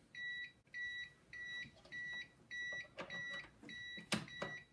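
Battery-backup UPS beeping its on-battery alarm: short, high beeps a little under two a second, the sign that the unit has lost mains power and is running on its battery. A sharp knock about four seconds in is the loudest single sound.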